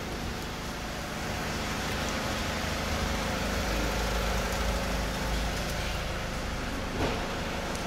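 Steady low rumble of background noise with a faint hum, and a single soft knock about seven seconds in.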